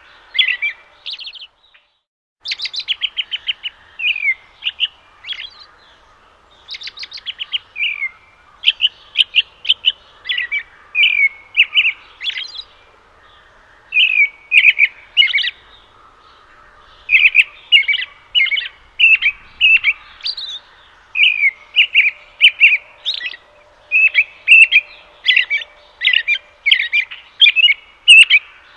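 Robin calling: short chirps and quick chattering runs of ticks, repeated in bursts with brief pauses between them.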